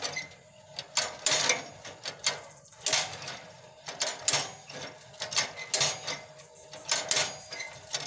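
Manual two-row paddy transplanter worked by hand: its chain drive and rotating picking arms clack and click as the metal fingers grip seedling clumps from the tray and release them. The clacks are sharp and irregular, about one or two a second.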